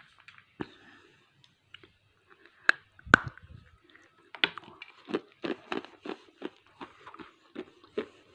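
A bite into a piece of roasted gray edible clay gives two sharp cracks about three seconds in. Steady crunchy chewing follows, about three chews a second.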